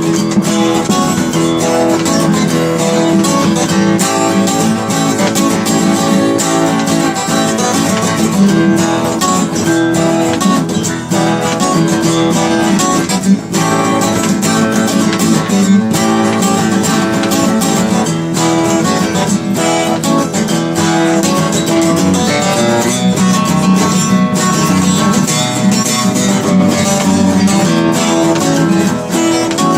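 Blues guitar playing an instrumental break: strummed and picked guitar with no singing.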